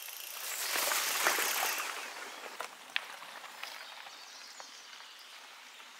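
Small woodland stream running over stones, with a mountain bike's tyres rolling past on the dirt trail and swelling the hiss about a second in. A few short bird chirps.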